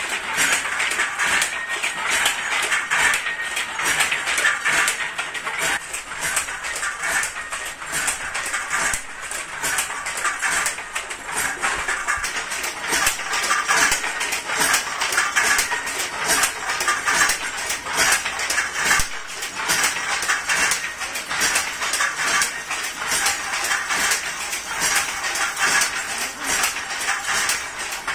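Automatic handloom weaving: a fast, continuous mechanical clatter from its shuttle and beater working.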